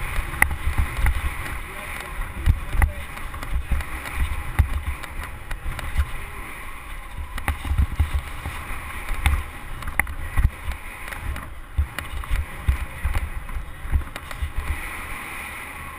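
Wind buffeting the microphone of a helmet-mounted GoPro on a BMX cruiser riding a dirt track, a gusty low rumble with tyre noise and scattered sharp knocks from the bike over the bumps.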